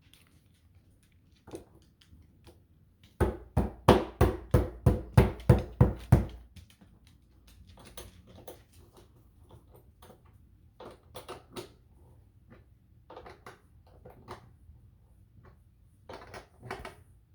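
A rapid run of about a dozen sharp knocks, roughly four a second, lasting about three seconds, with scattered lighter taps and clicks before and after.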